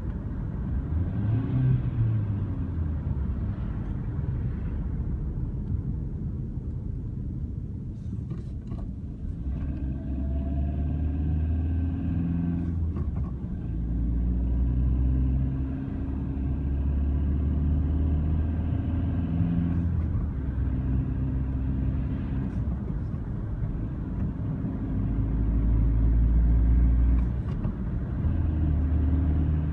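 A car on the move: a low engine and road drone whose pitch rises and falls with speed, with a few sharp clicks about eight to nine seconds in. These are the knocking, growling and crackling noises the owner reports while driving.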